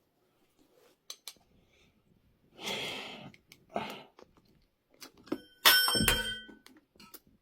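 Metal tools clicking and scraping against a scooter wheel rim while a tight tyre is levered off, then a loud metallic clang that rings on briefly, a little under six seconds in.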